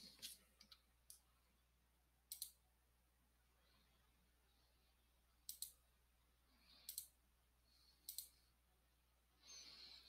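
Faint clicks of a computer mouse button, a few of them in quick pairs, over near silence.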